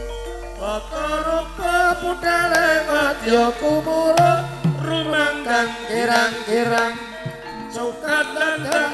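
Javanese gamelan music accompanying a dance: a singer's wavering, ornamented melody over hand-drum strokes, with a deep low tone humming underneath that dies away near the end.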